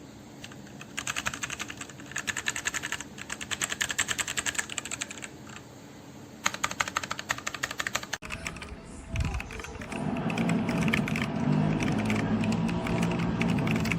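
Rapid typing on a Machenike K500 mechanical keyboard: fast runs of key clicks in three bursts with short pauses between them. About eight seconds in the sound changes abruptly, and the typing goes on over a louder, steady background with a low hum.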